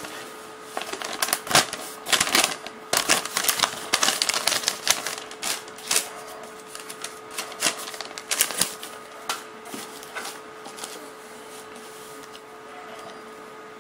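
Paper instruction manual and a small cardboard box being handled: dense crinkling and crackling for about the first nine seconds, then fainter rustles. A faint steady hum runs underneath.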